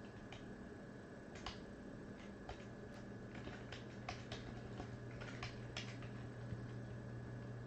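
Computer mouse and keyboard clicking, a dozen or so sharp clicks at irregular intervals, over a steady low electrical hum.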